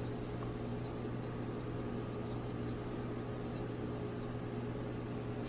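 A steady low hum with a few constant tones and no distinct events, typical of an appliance or fan running in a kitchen.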